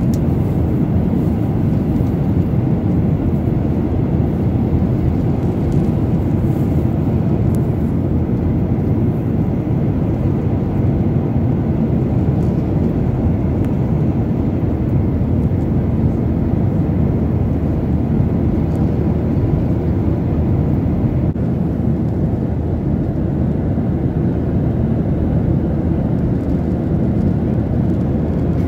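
Airliner cabin noise in flight: the jet engines and the rush of air past the fuselage make a steady, unchanging low rumble.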